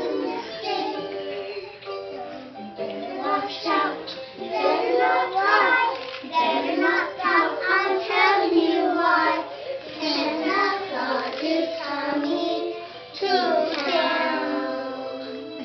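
A group of young children singing a Christmas song together, in continuous sung phrases.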